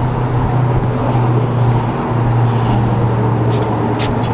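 A steady low mechanical hum, with a few sharp clicks near the end as a glass shop door is pulled open by its handle.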